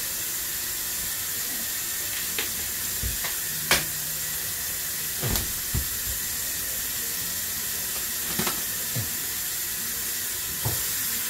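Plastic-wrapped foam tray of raw chicken wings being handled and opened: a scattering of short crinkles and taps over a steady hiss.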